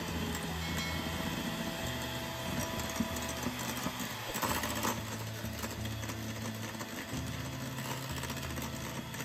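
Electric hand mixer running, its beaters whipping dairy-free cream cheese frosting in a glass bowl. The motor hum changes pitch about four seconds in and again near seven seconds.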